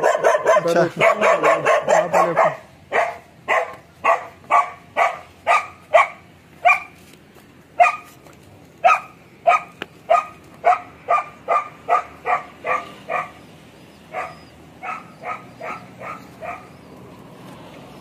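A dog barking: a fast flurry of barks for the first couple of seconds, then a steady run of single barks about two a second that grow fainter and stop near the end.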